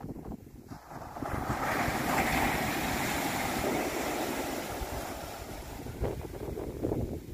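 Ocean surf breaking and washing up a sandy beach: a hissing wash swells about a second in and slowly fades, with wind buffeting the microphone throughout.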